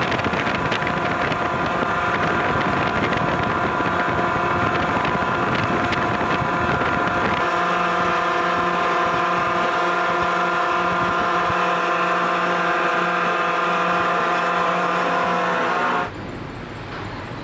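Ship's whistle on a Seikan ferry sounding one long, steady blast, its lower notes changing about halfway through, then cutting off suddenly. It is a farewell salute exchanged between ferries.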